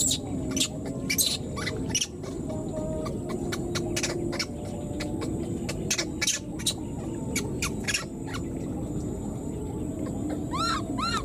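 Baby monkey calling with short, sharp high-pitched squeaks at irregular intervals, then two rising-and-falling squeaks near the end.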